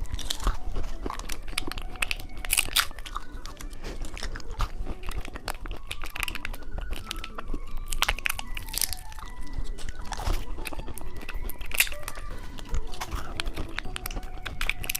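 Close-miked crunching and chewing of small hard candies, with irregular sharp crunches throughout. Faint background music plays underneath.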